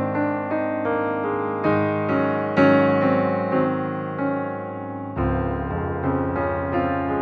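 Calm, slow piano music: soft notes and chords struck about twice a second, each ringing and fading, over a held bass that changes about five seconds in.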